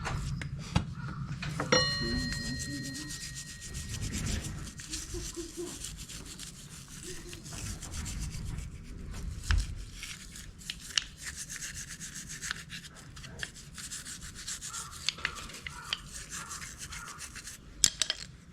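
Hand work rubbing and scrubbing at the scooter's metal front-brake parts, with scattered clicks and a sharp metal clink that rings on for a moment a couple of seconds in.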